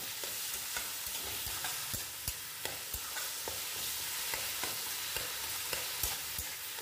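Taro leaves and cherry tomatoes sizzling in hot oil in a kadai, stir-fried with a spatula. Under the steady hiss, the spatula scrapes and knocks irregularly against the pan.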